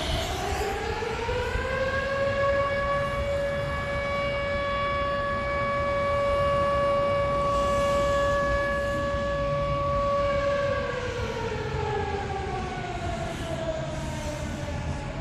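Outdoor tornado warning siren sounding in a test. It winds up in pitch, holds one steady wailing tone for about eight seconds, then winds down, and starts to rise again near the end.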